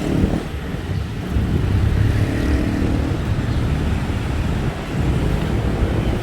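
Road traffic passing close by, with engines humming and a low wind rumble on the microphone; it grows louder about a second in.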